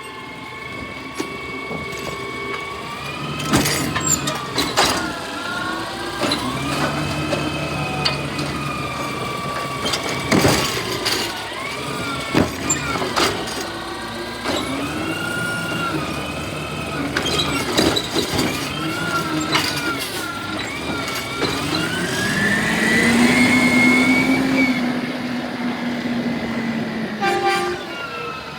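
Garbage truck at work: its engine and hydraulics whine up and down in pitch every few seconds, with one longer rise and fall near the end, amid repeated sharp bangs and clanks.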